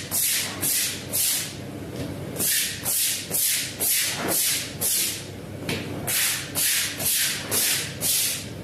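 Short spraying hisses, about two a second, in runs broken by brief pauses, as cleaning liquid is sprayed onto a rug.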